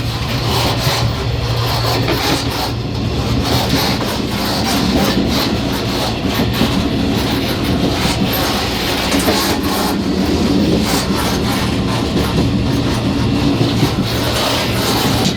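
Taiwan Railway EMU500 electric multiple unit running, heard at the gangway between two cars: a steady low rumble from the wheels and running gear, with continual clicking, rattling and creaking from the car connection.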